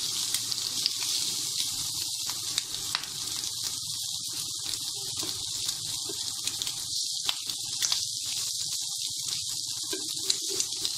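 Small peeled shrimp and onion sizzling in oil in a nonstick pan, a steady hiss with scattered crackles, while a spatula stirs and scrapes through them. The shrimp's own released water has cooked off, so they are now frying in the oil.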